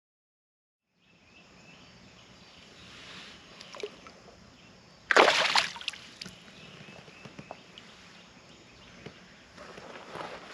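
Water lapping and small knocks around a fishing kayak, with one loud, brief splash about five seconds in.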